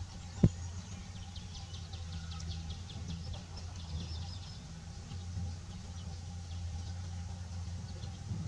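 Outdoor background: a steady low hum, a sharp click about half a second in, and a quick run of high chirps over the first few seconds.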